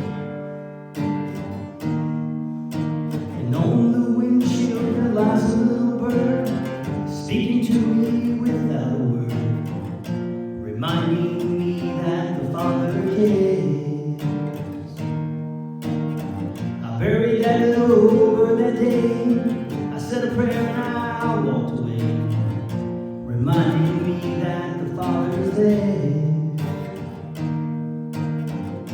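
A song: acoustic guitar strumming, with a voice singing over it from about three seconds in.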